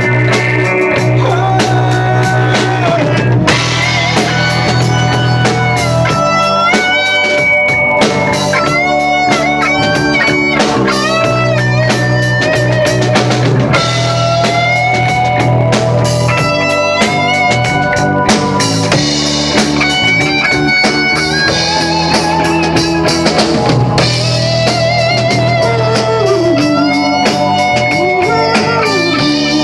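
Rock band playing an instrumental break with no singing: a lead guitar melody with bent and sliding notes over drum kit and bass.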